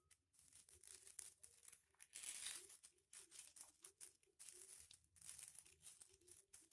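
Foil-covered paper being folded and creased by hand: quiet crinkling and rustling, loudest briefly about two seconds in.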